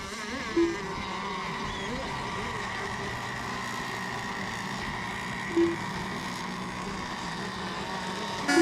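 Engines of radio-controlled racing boats running on the water, their pitch rising and falling as the boats circle. Two short beeps cut through, about half a second in and again about five and a half seconds in, and a horn starts right at the end.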